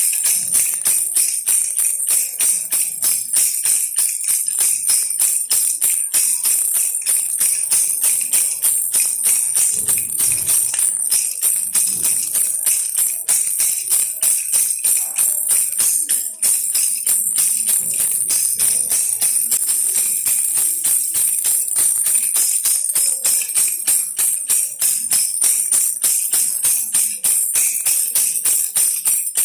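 Baby rattle toy shaken in quick, even strokes, a continuous jingling rattle.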